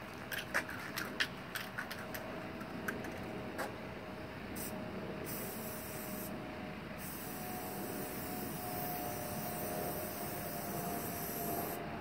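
Aerosol spray-paint can spraying onto a garage door: a short burst of hiss about four seconds in, then a longer steady spray from about seven seconds on. A quick run of sharp clicks comes before it, in the first few seconds.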